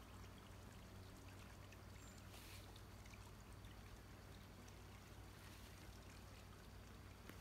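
Near silence: a faint, even outdoor hiss over a low steady hum, with one brief soft swish about two and a half seconds in.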